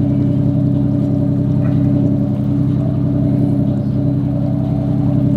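Boat engine running steadily in a low, even drone with no change in speed.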